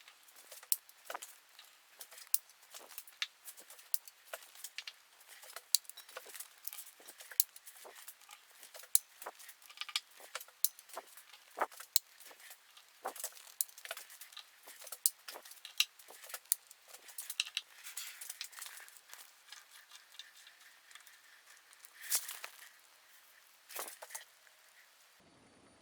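Irregular sharp metallic clicks and taps of hydraulic valve lifters from a Hyundai Accent engine being handled, knocking against each other and the work surface, several a second, ending shortly before the end.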